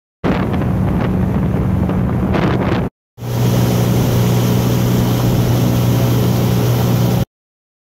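Motorboat engine running steadily at speed, a low hum under the rush of water and wind on the microphone. The sound breaks off for a moment about three seconds in, then resumes.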